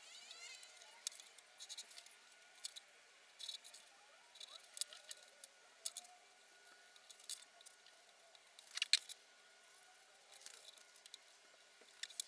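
Faint scratching and light clicks of a pencil tracing and a scalpel cutting and trimming a thin headstock veneer on a cutting mat, in short separate strokes with the sharpest click about nine seconds in.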